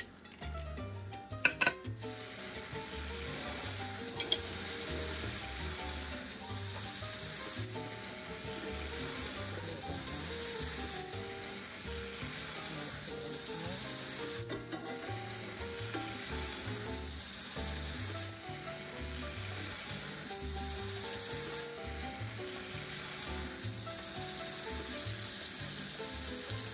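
Buttered sandwich bread sizzling steadily as it browns in a frying pan, with a sharp clack about a second and a half in and a smaller one a few seconds later.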